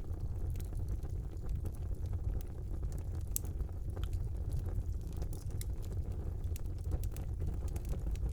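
Wood fire burning in a fireplace: a steady low rumble of the flames with frequent irregular crackles and pops, one sharper pop about three and a half seconds in.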